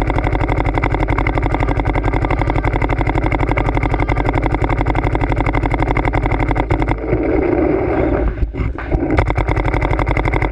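Dye DM7 electropneumatic paintball marker firing a rapid, evenly spaced stream of shots. The stream stops about seven seconds in, and a few scattered shots follow.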